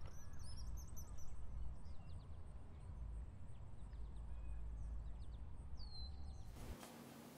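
Outdoor ambience: small birds chirping and tweeting over a steady low rumble. About six and a half seconds in it cuts to a faint steady hiss.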